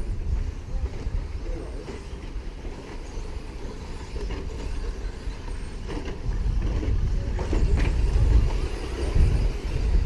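Low, gusting rumble of wind on the microphone, growing stronger about six seconds in, with a few faint clicks.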